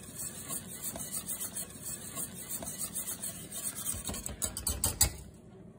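Wire whisk beating a hot cream sauce in a metal pan, its wires scraping and ticking against the pan in a rapid, steady rhythm, with a few louder knocks between about four and five seconds in. The sauce is stirred continuously so that the hot cream doesn't boil over.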